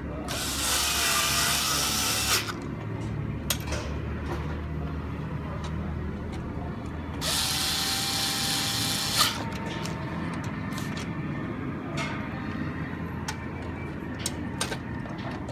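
Cordless electric screwdriver running twice, about two seconds each time, driving the stepper motor's mounting bolts home; each run ends in a sharp click. Light clicks and taps of the bit and metal parts come in between.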